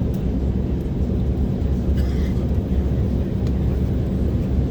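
Steady low rumble inside the passenger cabin of an Embraer 190 airliner on the ground, from its running engines or air-conditioning, with a faint brief sound about two seconds in.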